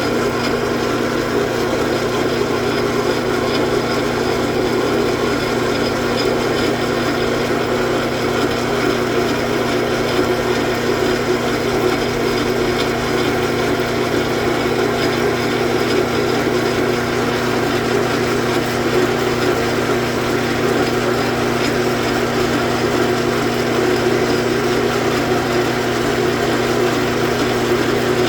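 Metal lathe running steadily under a cut, its motor and gearing giving a constant hum with the chatter of the tool working the metal.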